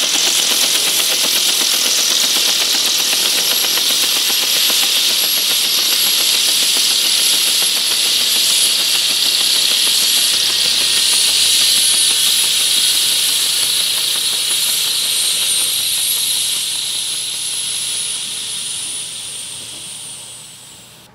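UH-1H Huey helicopter turbine sound from an RC sound card, running down after shutdown: a steady hissing turbine noise whose high whine falls slowly in pitch while the whole sound fades away over the last few seconds.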